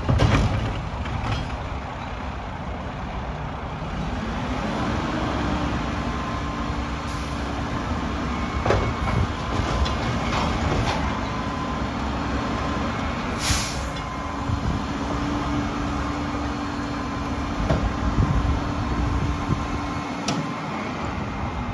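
Mack LR garbage truck running close by, with a steady hum from its engine and hydraulics that comes in about four seconds in and holds until near the end. A few knocks and clunks, and one short hiss of air about two-thirds of the way through.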